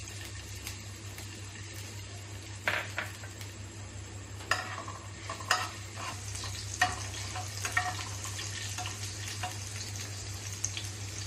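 Chopped green chillies sizzling in hot oil in a kadhai, stirred with a spatula that scrapes and taps against the pan several times.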